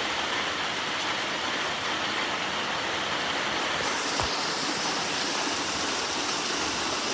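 Heavy rain pouring down: a steady hiss of falling water that turns brighter about halfway through, with one faint knock shortly after.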